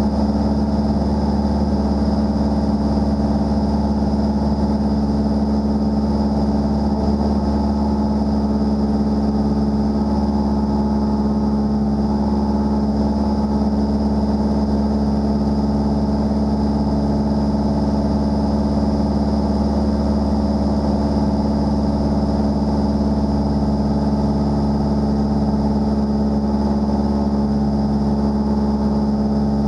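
Single-engine light aircraft's piston engine and propeller running steadily in flight, holding one constant pitch.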